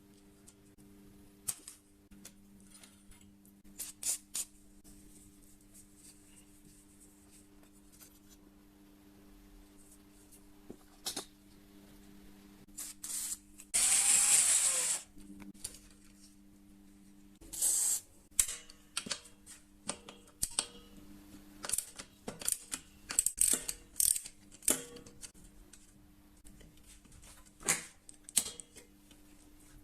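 Hand tools clicking and clinking against bicycle parts in a quiet workshop, with a faint steady hum underneath. There is one loud hissing burst of about a second midway, and the clicks come thicker in the second half.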